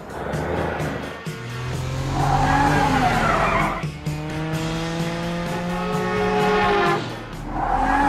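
Cartoon vehicle sound effects over background music: a steady engine hum that revs up through the middle, with two screeching tyre squeals, about two seconds in and again near the end.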